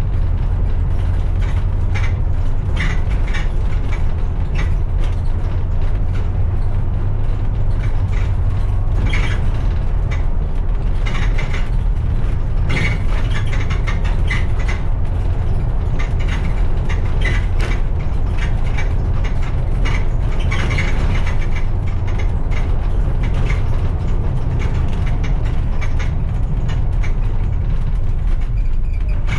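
Bus driving along a road: a steady low engine and road rumble with frequent irregular rattling and clicking of loose fittings.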